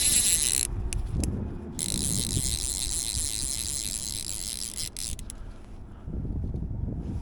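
Fly reel's click-pawl ratchet buzzing as line is cranked in on a hooked trout. It runs in spurts, stopping briefly about a second in and again from about five seconds.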